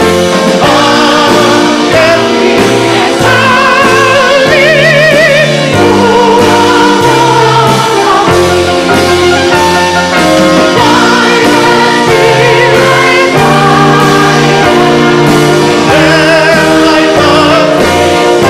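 A song: a high operatic singing voice with a wide vibrato over instrumental accompaniment, with many voices singing along.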